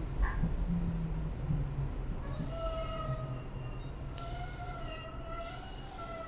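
New York City subway train rumbling as it slows into a station, with a wavering squeal from the wheels and brakes starting about two seconds in. Three short bursts of hiss come in the second half.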